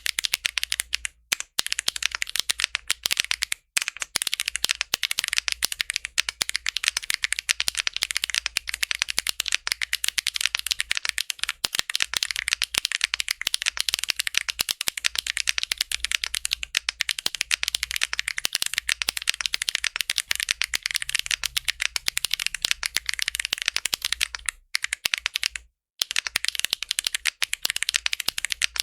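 Weikav Lucky65 v2 mechanical keyboard with Sillyworks x Gateron Type R switches being typed on fast: a dense stream of keystroke clacks, broken by a few brief pauses.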